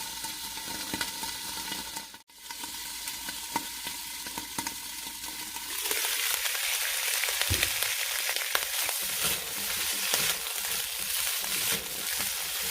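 Bell peppers, wood ear mushrooms and sugar snap peas sizzling in a wok with oil and a little water. The sizzling cuts out for an instant about two seconds in and grows louder and brighter from about six seconds in, with scattered light clicks.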